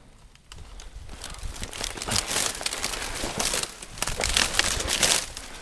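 Dry brush and twigs crackling and scraping against clothing as someone pushes through a snowy thicket. It starts about half a second in, grows louder, and eases off near the end.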